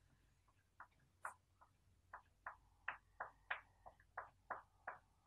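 Chalk writing on a blackboard: a quick run of faint, short taps and scrapes as the letters are stroked on, about two to three a second.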